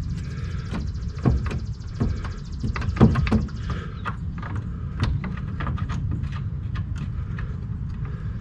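Irregular metallic clicks and knocks of bolts and tools being handled while subframe bolts are started by hand, over a steady low hum. A high buzzing stops about four seconds in.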